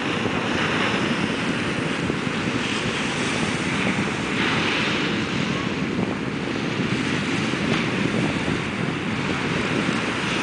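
Small waves washing and breaking on a sand beach, a steady rush of surf, with wind on the microphone.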